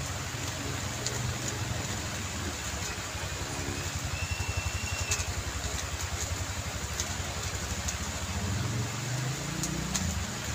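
A motor vehicle engine idling with a low, even pulsing, rising in pitch over the last couple of seconds as it revs. Faint clicks of a speedcube being turned sound over it.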